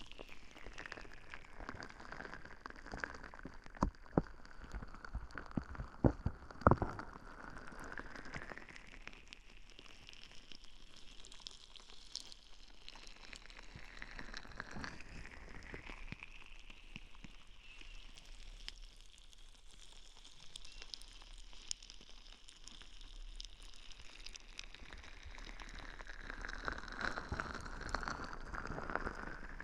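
Relaxation ball rolled and rubbed against a binaural microphone's ear, giving a soft crackling rustle whose tone sweeps slowly up and down. A few sharp clicks come about four to seven seconds in.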